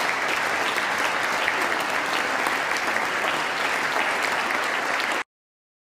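Large audience applauding: dense, steady clapping that cuts off abruptly near the end.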